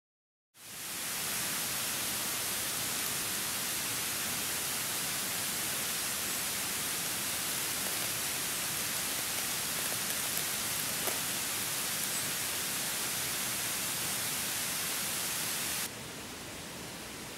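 A steady, even rushing hiss that fades in just after the start and drops to a lower level at a cut near the end.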